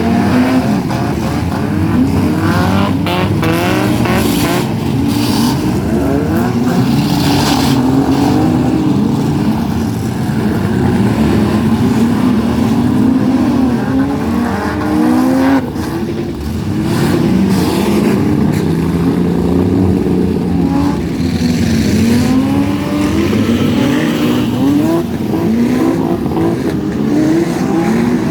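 Demolition derby cars' engines revving hard, several at once, their pitch rising and falling constantly, with a few sharp bangs of impact.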